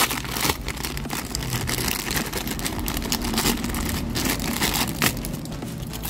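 Clear plastic packaging crinkling and rustling in the hands as a wall light switch is unwrapped, a dense run of irregular crackles over a steady low hum.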